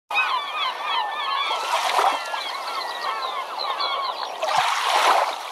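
A flock of birds calling, many short overlapping calls at once, with two louder rushing swells of noise, one about two seconds in and one near the end.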